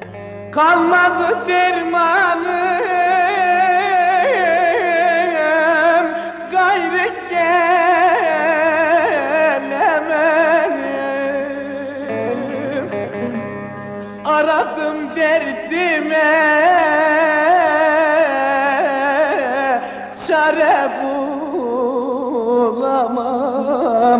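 Recorded Turkish folk song: a melody with heavy vibrato and ornaments over a steady accompaniment, dipping in loudness for a moment about halfway through.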